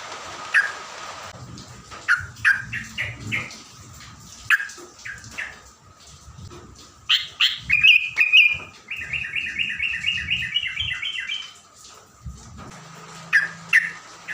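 Yellow-vented bulbul (trucukan) calling: a run of short sharp chirps, then a few louder notes about seven seconds in, followed by a fast, even trill lasting two to three seconds. A faint steady tone sits underneath.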